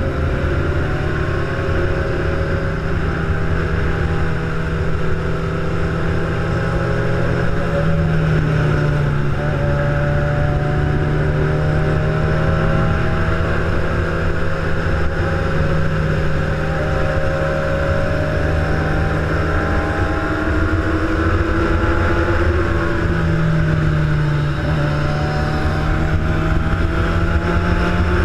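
Engine of a ridden vehicle running steadily under way, its pitch drifting slowly up and down, over a heavy low rumble of wind and motion.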